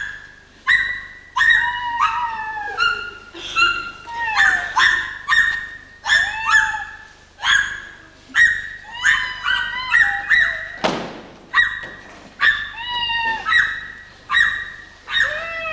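A quick run of short, high, animal-like yelping and whimpering cries, about one and a half a second, many sliding down in pitch. About eleven seconds in there is one hissing whoosh.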